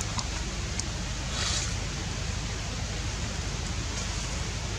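Steady background hiss of outdoor ambience, with a brief soft rustle about a second and a half in.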